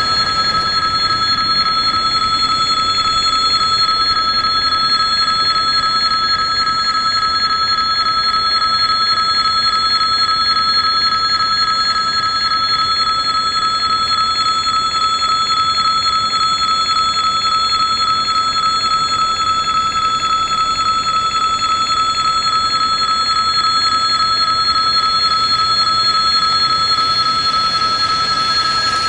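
Railway level-crossing warning bell ringing steadily without a break, signalling that a train is approaching and the crossing is closed.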